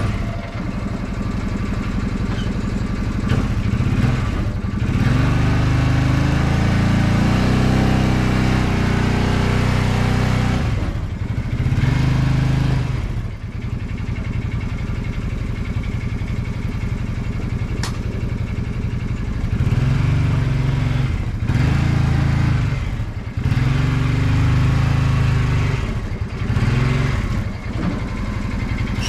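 Engine of the vehicle towing a sawmill trailer, running low and revving up and easing back several times as it works the trailer over frozen, rutted ground.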